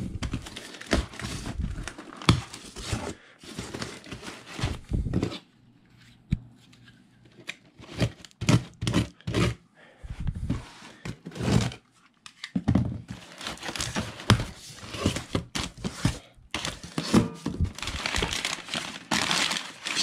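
Packing tape on a cardboard box being slit and torn away and the flaps pulled open, then packing paper crinkling and rustling in irregular bursts as it is handled, thickest over the last several seconds.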